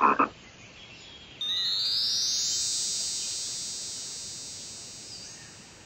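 A short frog croak right at the start. About a second and a half in, a bright synthesizer note comes in suddenly and fades slowly over about four seconds.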